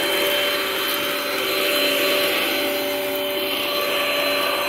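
Sanitaire Multi-Purpose Pro commercial upright vacuum running steadily, a motor whine over the hiss of rushing air; an old, well-worn machine that still runs.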